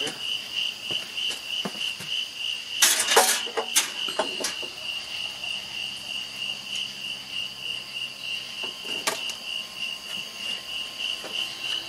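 Night insects trilling in a steady, evenly pulsing high tone. About three seconds in there is a loud brief clatter of knocks, with single sharp knocks about a second later and near the nine-second mark.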